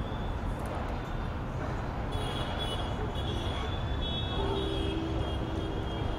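Steady road traffic noise, with a brief steady tone lasting about a second near the end.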